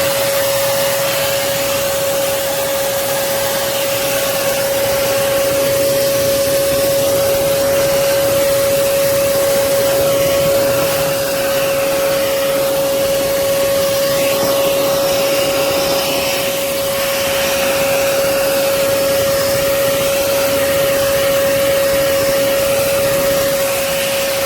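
Hoover PortaPOWER portable vacuum cleaner running steadily with a high, even whine over a rush of air, sucking up dust and spider webs through a hose attachment.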